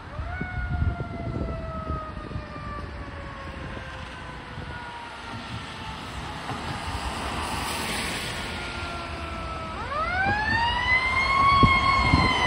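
Approaching fire truck's siren winding up, slowly falling in pitch for several seconds, then winding up again about ten seconds in and growing louder as it nears. A car hisses past on the wet road around the middle.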